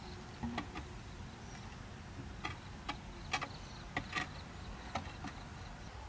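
Flat stone slabs knocking and clacking against rocks as they are set in place: about ten sharp, irregular clicks and knocks.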